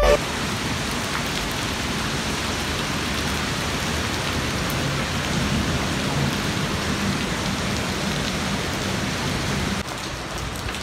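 Heavy tropical rain pouring onto a wet concrete footpath, a steady, even hiss of drops splashing on standing water. It drops suddenly to a quieter level near the end.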